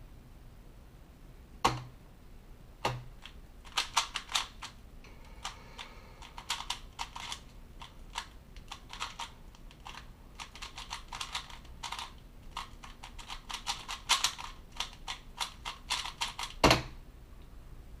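A 3x3 Rubik's cube being speedsolved: fast runs of plastic clicks and clacks as the layers are turned, with short pauses between runs. Two knocks near the start and one louder knock near the end, about 14 seconds after the second, are hands hitting the computer keyboard to start and stop the solve timer.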